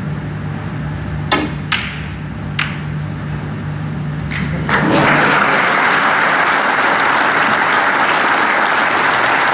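Snooker balls clicking: three sharp clicks in the first three seconds as the cue strikes the cue ball and balls collide, over a low hum. About five seconds in, the audience breaks into steady applause for the shot.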